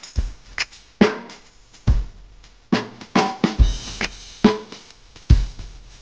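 Background music with a steady drum beat: a bass drum thump about every second, with snare hits in between.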